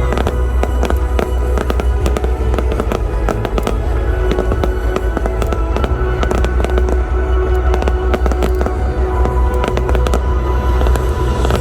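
Fireworks display: a dense, continuous run of bangs and crackles with deep booms, over loud music with long held notes.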